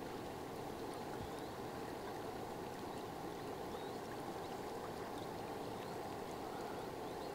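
Steady rush of fast-flowing river water, an even noise with no breaks.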